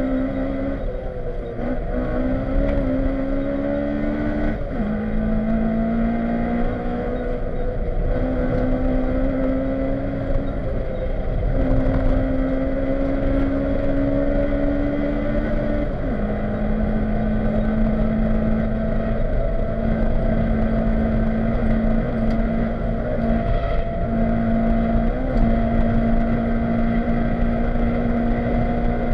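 Honda Civic rally car's engine heard from inside the cabin, running hard at speed, its pitch climbing slowly under load and dropping sharply a few times, over steady road and tyre noise.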